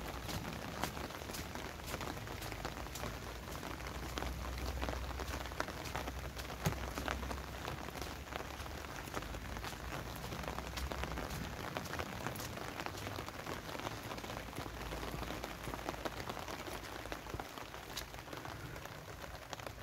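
Steady rain falling, with many sharp ticks of single drops landing close by at irregular moments.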